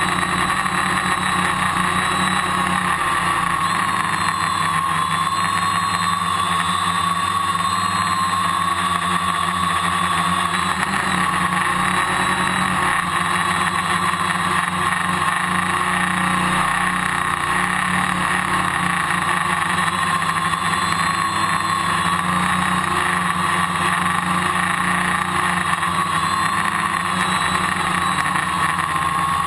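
Electric motors and spinning propellers of a multirotor drone, heard up close from its onboard camera: a steady whine whose pitch wavers gently up and down as the motors adjust their speed in flight, over a constant low hum.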